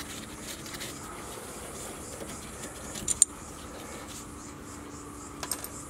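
Hands working a spanner on a car's rear disc-brake caliper: faint handling of metal parts, with two sharp clicks about three seconds in and two lighter ticks near the end, over a faint steady hum.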